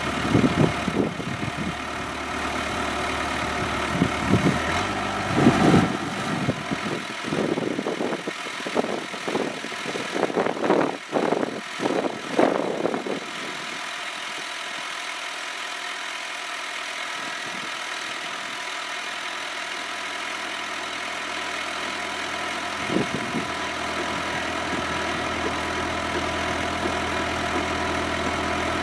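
Kubota B7800 tractor's diesel engine running, driving a three-point-hitch post hole auger boring into the ground. Uneven surges and knocks for the first dozen seconds as the auger works the soil, then a steadier, even run, with a single knock about 23 seconds in.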